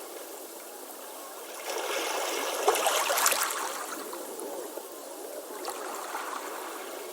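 Ocean waves on a beach: one wave swells and breaks about two seconds in, loudest around three seconds, then eases back into a lower wash with bubbling water.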